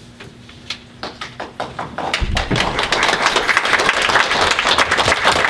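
A roomful of people applauding: a few scattered claps that build into steady applause about two seconds in, with a low thump as it swells.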